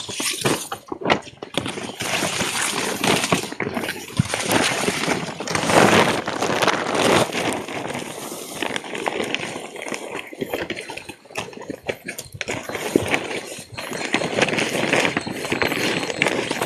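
Rustling and crackling of leaves and grass, with irregular footsteps and knocks from a handheld phone being moved quickly on foot past tall plants.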